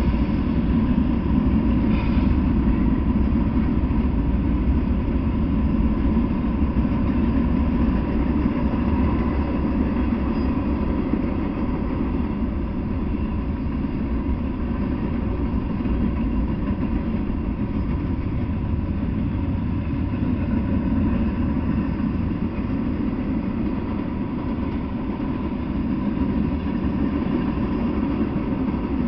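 Norfolk Southern freight train passing: the low engine sound of its diesel locomotives for the first ten seconds or so, then a steadier, quieter rumble of autorack cars rolling by on the rails.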